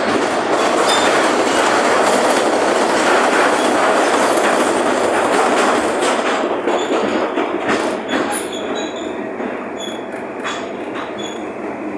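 Belgrano Sur passenger train heard from on board, its wheels running loudly over the rails. After about six seconds the noise eases into separate rail-joint clicks and short high-pitched wheel squeals.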